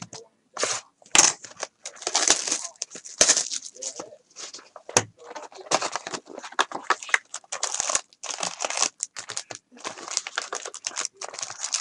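Foil trading-card packs (2016 Donruss Optic football) crinkling and rustling in irregular bursts as they are pulled out of an opened cardboard box and handled. A couple of sharp knocks come about a second in and about five seconds in.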